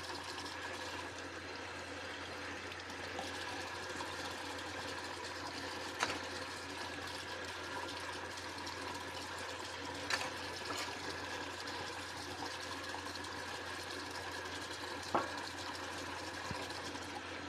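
Kitchen tap running steadily into the sink during hand dishwashing, with three short sharp clinks of dishware spread through it.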